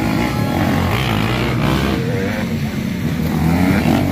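Dirt bike engine revving during an enduro motocross race, its pitch rising and falling with the throttle and climbing again near the end.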